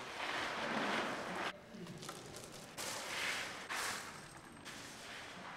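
Small stones rattling and crunching as a bucket is scooped into a bulk bag of gravel and then tipped out onto a pile, in several separate rushes each about a second long.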